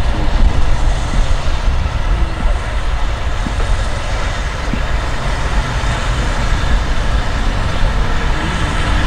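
Steam locomotive running slowly towards the listener: a loud, steady low rumble with no clear chuff beat.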